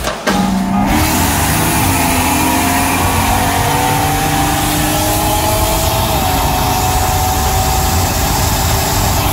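Car engine under hard acceleration, its pitch climbing slowly over several seconds beneath heavy wind and road noise.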